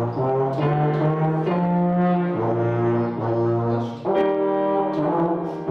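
Tuba played by a young student: a slow line of held notes, changing pitch about once a second.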